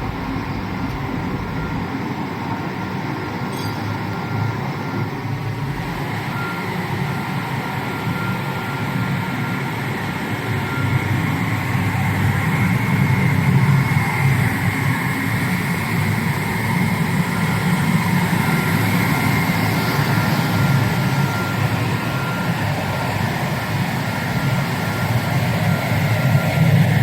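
Vertical flat glass washing machine running: a steady machine noise with a thin continuous whine, growing somewhat louder about eleven seconds in.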